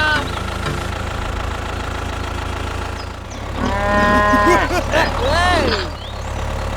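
Cow mooing: one long call about three and a half seconds in, then a shorter rising-and-falling call, over a steady low engine hum.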